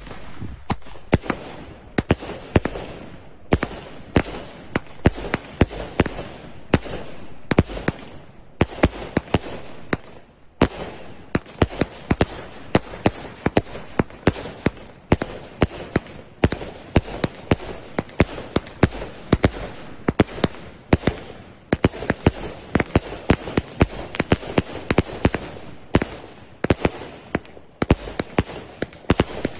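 A 100-shot firework cake firing in rapid succession: a steady run of sharp launch bangs, two or three a second, over a continuous hiss, with a brief lull about ten seconds in.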